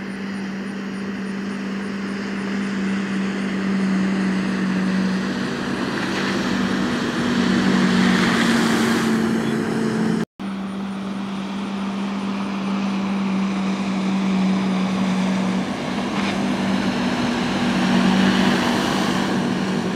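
Ski tow boat's engine running steadily at speed with a constant hum, under a rushing hiss of water spray that swells twice as the boat and the cutting slalom skier pass. The sound drops out for an instant about halfway.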